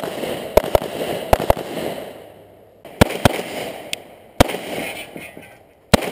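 .38 Super pistol firing about eight shots in a USPSA stage, mostly as quick double taps, each shot trailed by a fading echo.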